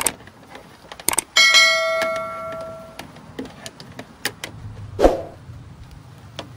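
A few sharp clicks, then a single bell ding about a second and a half in that rings out and fades over about a second and a half: the notification-bell sound effect of a subscribe-button animation. A knock follows about five seconds in.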